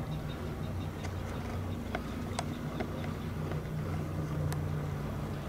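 Outboard motor of a patrol boat running at low speed, a steady low hum.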